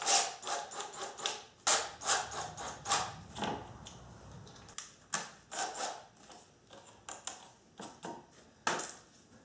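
A hand rubbing and brushing across a plywood corner gusset on a wooden door frame: a run of irregular scratchy strokes and light taps, busiest in the first few seconds and thinning out towards the end.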